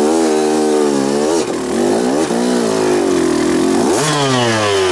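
Dirt bike engine being ridden and revved, its pitch climbing sharply near the start and again about four seconds in, then easing down between throttle blips.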